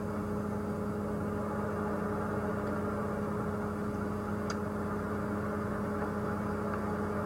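Game-drive vehicle engine idling, a steady even hum, with a faint click about four and a half seconds in.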